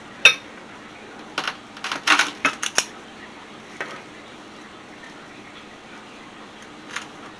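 Metal squeeze-handle scoop clicking and scraping against a glass mixing bowl as cookie dough is scooped out. A quick run of clicks comes about one and a half to three seconds in, with a few single clicks before and after.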